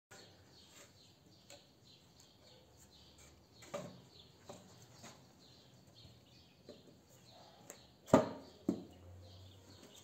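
Quiet handling sounds of a seat mock-up being set onto a motorcycle's bare rear subframe: scattered soft taps and rustles, with two sharper knocks near the end. Faint bird chirps in the background.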